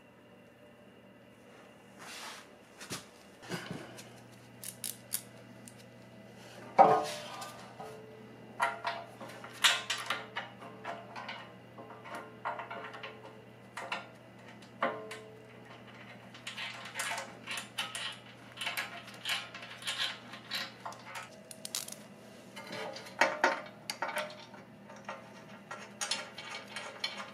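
T-Rex Racing aluminum skid plate and its mounting hardware clanking and clicking as the plate is handled and bolted into place: many irregular metallic knocks, the loudest about seven seconds in, over a faint steady hum.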